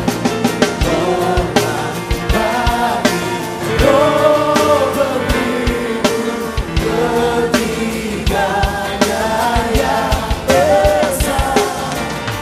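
Live Christian worship music: a group of singers with a full band, the sung melody carried over a steady drum beat.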